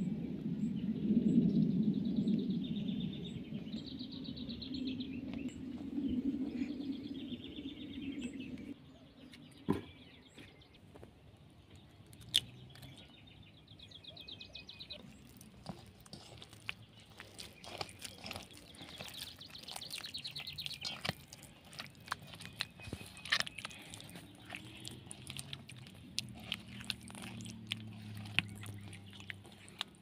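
Small songbirds chirping and trilling in repeated high phrases. A low rushing sound fills the first nine seconds or so and then stops abruptly. After that come many small clicks and soft scrapes of a hand working butter, eggs and sugar into dough in a glazed clay bowl.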